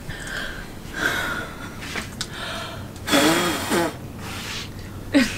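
A person blowing hard at lit candles to put them out: about four forceful puffs of breath, the loudest about three seconds in with a short voiced sound mixed into it.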